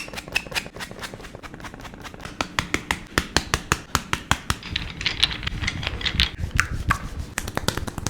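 A quick, irregular run of sharp clicks and taps, a few each second.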